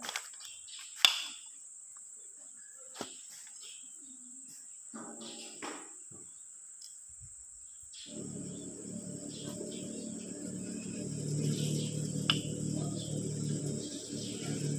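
Steady high shrill of insects, with a few sharp metal clinks from a piston and connecting rod being handled, the loudest about a second in. From about eight seconds a low rumbling hum starts and carries on.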